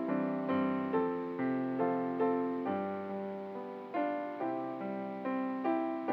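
Slow instrumental piano music: notes struck about twice a second in a steady pulse over held lower notes, each fading after its attack.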